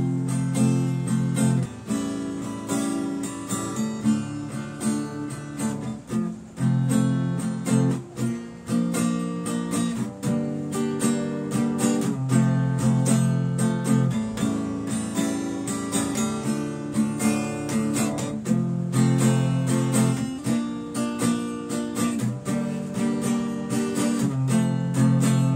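Acoustic guitar strummed in a steady rhythm, the chord changing about every two seconds.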